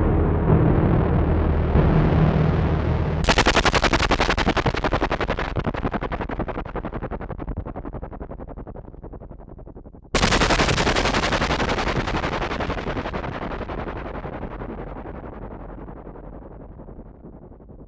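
Alesis Andromeda analog synthesizer playing noisy effect patches built on audio-rate modulation. A low, rumbling tone fades out, then about three seconds in a sudden hit of rapid crackling pulses starts and slowly dies away, growing duller as it fades. A second, similar hit comes about ten seconds in and decays the same way.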